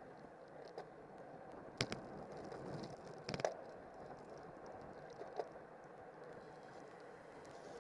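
Steady muffled rush of wind and tyre noise from a road bicycle riding in a racing pack, with a few sharp clicks and knocks, the loudest about three and a half seconds in.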